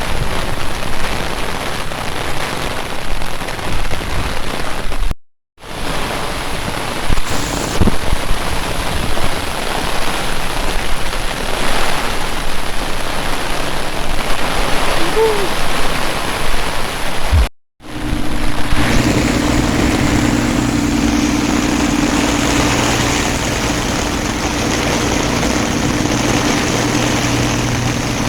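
Steady rain falling and splashing, broken by two brief cuts to silence. After the second cut, about two-thirds of the way through, a steady engine hum runs under the rain.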